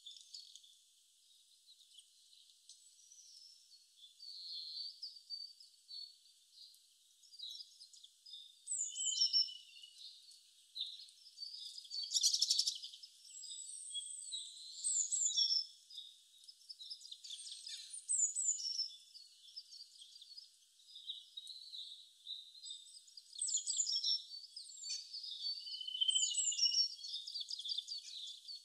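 Birds chirping and singing: a busy run of short high chirps, trills and quick falling whistles, loudest at a rapid rattling trill about twelve seconds in. Nothing sounds below the birds' pitch, so no kitchen noise is heard.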